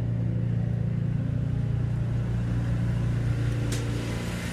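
A motor running steadily with a low, even drone, and a single short click near the end.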